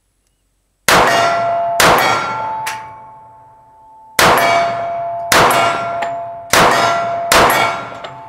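A steel target plate rings as .45 ACP pistol rounds hit it: two sharp strikes, a pause, then four more. Each strike leaves a ringing tone that dies away slowly.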